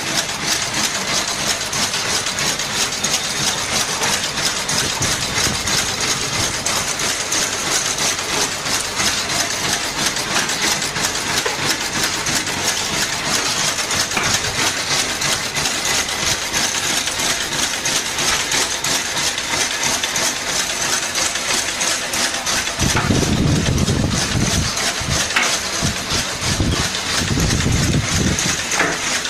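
Carton batch-coding machine, a friction-feed contact coder, running and feeding cartons off a stack: a steady, rapid mechanical clatter with a hum. Near the end a louder low rumble comes and goes for a few seconds.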